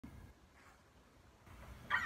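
Faint handling of an acoustic guitar being brought into playing position, with one short squeak near the end.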